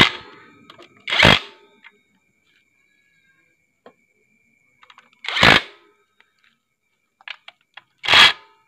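A power tool, likely an impact wrench, fires about four short bursts of a few tenths of a second each, spaced a second or more apart, as it runs in the bolts of a scooter's engine cover.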